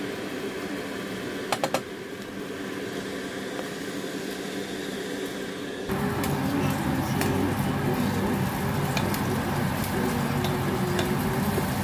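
Rice and vegetable baby food cooking in a saucepan on an electric cooktop, stirred with a wooden spoon, over a steady low hum. A couple of sharp taps come about a second and a half in, and the hum grows louder about halfway through.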